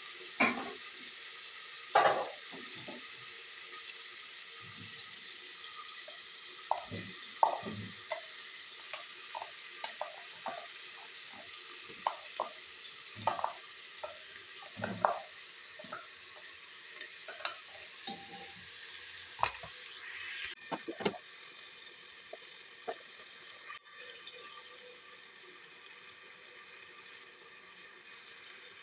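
Food sizzling in a frying pan while it is stirred, the spoon knocking and scraping against the pan many times. The sizzle drops a little about two-thirds of the way through.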